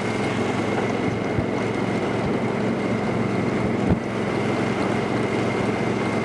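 Engine of a vehicle running steadily under way, with wind rushing over the microphone and a few short knocks from bumps in the ride.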